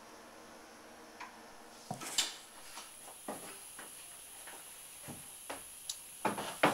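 Irregular light knocks and clicks of wooden cabinet trim being handled and fitted against the cabinets, about a dozen in all, with a louder knock a little after two seconds in and a quick cluster of sharp ones near the end.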